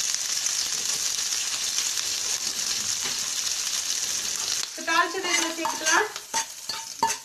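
Mustard seeds, cumin, dried red chillies and curry leaves sizzling steadily in hot oil in a small steel kadai as a tadka. About four and a half seconds in, this gives way to the tempering being tipped into cooked dal, with a steel spoon scraping and clinking against the pan.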